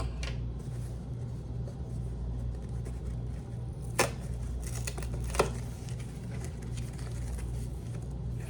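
A parcel being handled and opened: quiet rustling with two sharp clicks about a second and a half apart, over a steady low hum.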